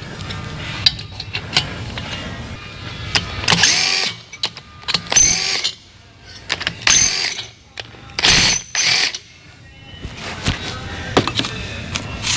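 Hand tools working on a Harley-Davidson Twin Cam 103 engine on the bench: a ratchet and wrench loosening the cylinder head bolts, with metal clanks and scrapes in several short bursts as parts are handled.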